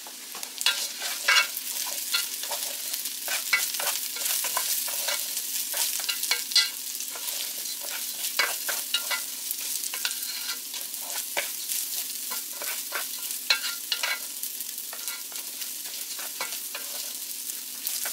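Washed raw rice sizzling in a little hot oil in an aluminium pot while a wooden spoon stirs it, with frequent sharp scrapes and knocks of the spoon against the pot. The rice is being toasted in the oil before boiling water goes in.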